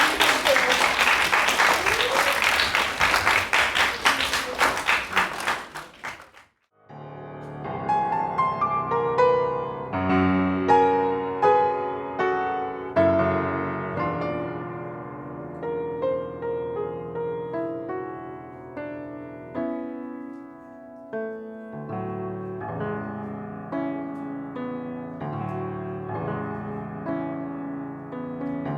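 Audience applauding for about six seconds, cut off suddenly, followed by a solo piano playing a slow piece of single notes over chords.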